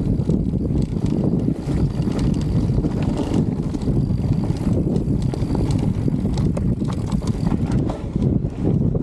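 Wind rumbling steadily on the microphone, with scattered light clicks and rattles.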